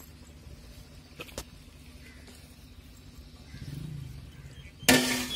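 A sudden loud metallic clatter with a short ring about five seconds in, from the aluminium plate lid of the biryani pot being handled, after a low background with a couple of faint clicks.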